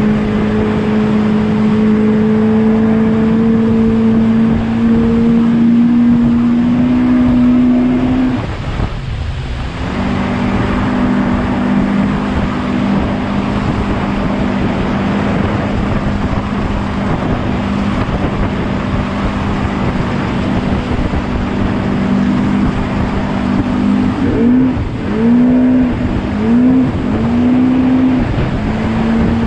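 Speedboat engine running at high speed over rushing water and spray, a steady strong note. About eight seconds in the engine note cuts out briefly and then returns. Near the end it rises and falls three times in quick succession before settling again.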